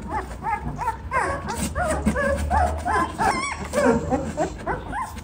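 Bully Kutta puppies, about 20 days old, whimpering and squeaking in quick, short rising-and-falling cries, several a second, over a steady low hum.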